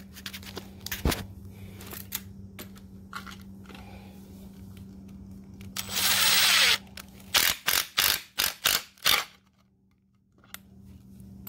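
Impact driver sinking a hex-head screw into 3/4-inch Coosa composite board. It runs once for just under a second about six seconds in, then gives about eight short bursts, roughly four a second, as the impact hammering engages and the screw seats tight in the board.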